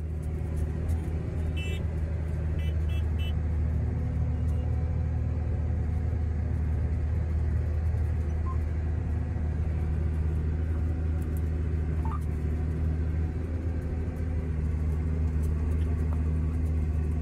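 Tractor engine running steadily under load while pulling a corn planter, heard from inside the cab as a low, even drone. A few faint short beeps sound about two to three seconds in.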